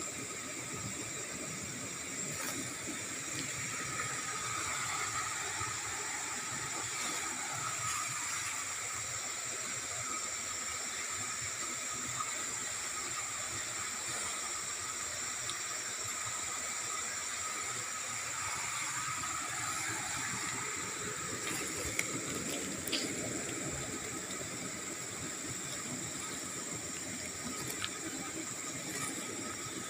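Steady outdoor hiss with several constant high-pitched tones running under it, and a couple of faint clicks about two-thirds of the way through.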